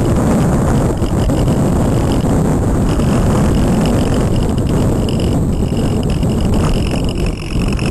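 Loud, steady rush of wind over the onboard camera microphone of a Multiplex Cularis model glider in flight, with a faint high whine that comes and goes.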